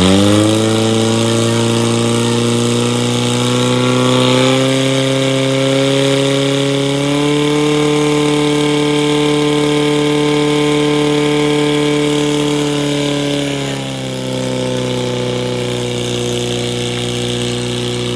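Portable fire pump's petrol engine running at high, steady revs while pumping water through the attack hoses. Its pitch rises slightly about seven seconds in and drops noticeably about fourteen seconds in.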